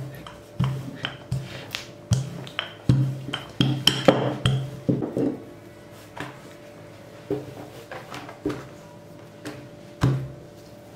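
Background music under irregular knocks and taps of a rolling pin on the countertop as dough is rolled out. The knocks come thick in the first half and thin out later.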